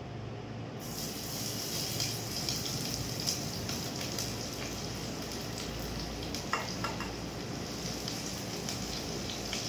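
Food frying in hot oil in a small steel pot: a steady sizzle with many small crackling pops, growing brighter about a second in as the lid comes off.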